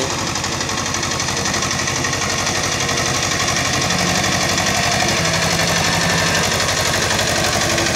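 HMT 2522 tractor's diesel engine running steadily with a rapid, even knocking beat while pulling a cultivator through a flooded paddy field, getting slightly louder as the tractor comes closer.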